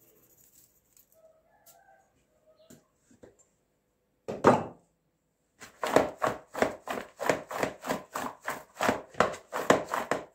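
A plastic bowl of cut potato strips being shaken on a counter, the strips knocking about three to four times a second for about five seconds. There is a single knock a little before it starts.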